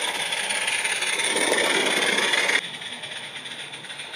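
Small live-steam garden-railway locomotive running past with its wagons: hissing steam and wheels rattling on the track, growing louder as it nears, then dropping suddenly to a quieter rattle about two and a half seconds in.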